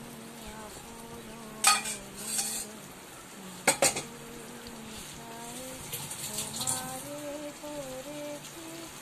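Marinated chicken frying in oil in a nonstick kadai on high heat, sizzling steadily. A utensil knocks sharply against the pan about two seconds in and twice more just before four seconds.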